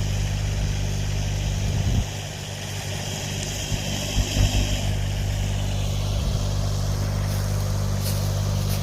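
Machine engine running steadily at a constant speed, with a few irregular knocks about four seconds in.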